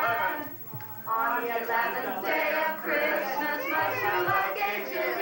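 Mixed group of men's and women's voices singing a carol line together, with some chatter mixed in. There is a short breath-like pause about half a second in.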